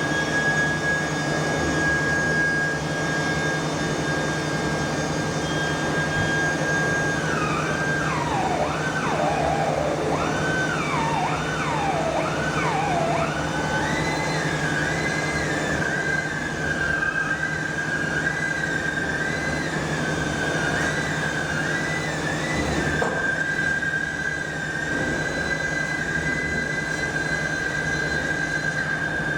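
Steady machinery noise with a low hum and a constant high whine. For several seconds in the middle a whine repeatedly drops in pitch and climbs back, about once a second, then settles back to the steady tone.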